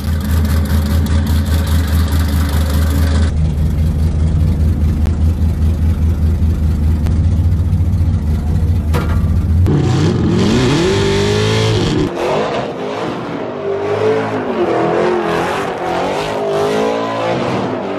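Supercharged V8 drift-car engine idling with a lumpy, uneven beat. About ten seconds in it revs up hard, its pitch rising and then wavering up and down at high revs.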